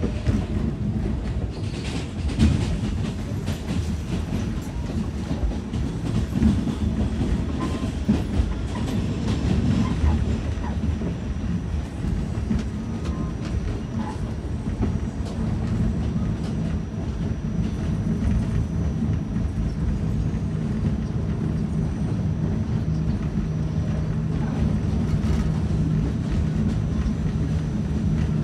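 Ride noise inside a moving R46 subway car: a steady low rumble of the train running, with clicks and knocks from the wheels on the track, most of them in the first ten seconds. A steady low hum comes up more plainly near the end.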